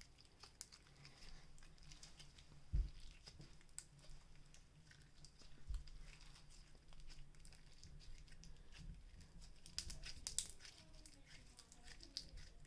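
Slime being kneaded and pulled by hand: faint sticky clicks and crackles, with a couple of soft thumps and a denser run of clicks near the end.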